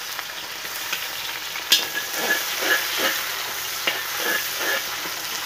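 Chopped vegetables sizzling in hot oil in a steel wok while a spatula stirs and scrapes them, with one sharp metallic clink nearly two seconds in.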